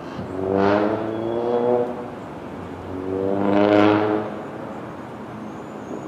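Two motor vehicles drive past one after the other, each engine swelling up and fading away over a second or two. The engines rise slightly in pitch, and the second pass is the louder, peaking just before four seconds in.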